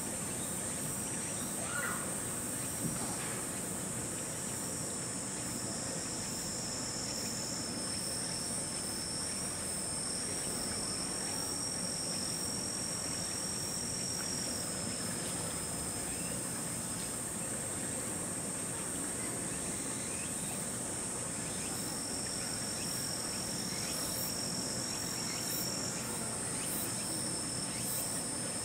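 Insects singing steadily in a high, shrill chorus, one song dropping out partway through and starting again, over a low background hum.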